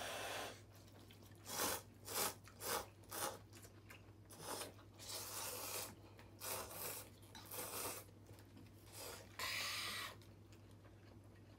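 Ramen noodles being slurped from bowls with chopsticks: a run of short, noisy slurps, with a few longer drawn-out ones.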